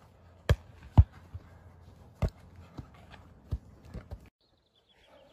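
A volleyball being struck again and again in a rally: six or so sharp slaps, the two loudest in the first second, then the sound cuts off near the end.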